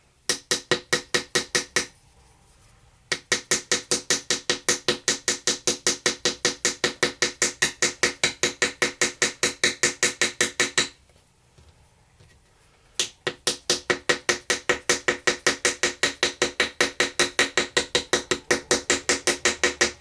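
Hammer rapidly tapping a metal chisel into a plaster treasure-dig block, about five ringing strikes a second. The taps come in three runs: a short one at the start, a long one, and another after a pause of about two seconds.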